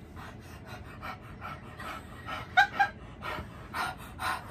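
A person panting hard through an open mouth, quick breathy huffs two or three a second with a short voiced sound about halfway through: the mouth burning from very spicy ramen.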